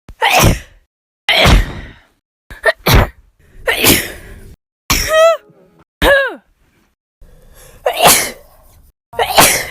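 A woman sneezing over and over: about eight sharp sneezes, one after another with short gaps of silence between them. A couple of them end in a voiced 'choo' that falls in pitch.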